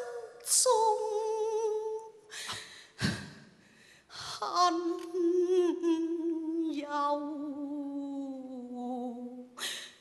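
A woman singing a Cantonese opera melody: a held note with strong vibrato, a brief break of short sounds, then one long note of about five seconds that slowly falls in pitch.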